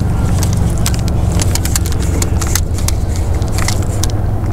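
Wind buffeting the microphone as a steady low rumble, with many small irregular clicks and light rattles over it.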